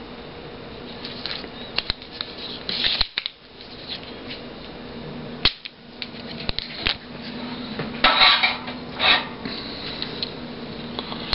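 Scattered clicks, taps and scrapes of a soldering iron tip and fingers working on a TV power circuit board while desoldering a capacitor. Louder rustling scrapes come about eight and nine seconds in as the board is handled, over a faint steady hum.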